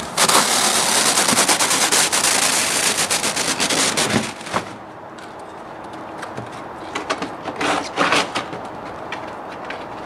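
A roll of black sheeting pushed along a corrugated steel roofing panel, the metal rattling and crackling in a dense run of rapid clicks that stops after about four and a half seconds. Then a few scattered knocks and scrapes on the metal.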